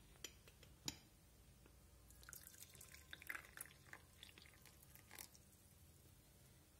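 Two light clicks, then tea poured from a ceramic teapot into a ceramic mug: a faint splashing trickle that stops a little after five seconds in.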